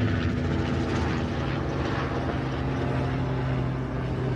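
An engine running steadily: a loud, even drone with a constant low hum.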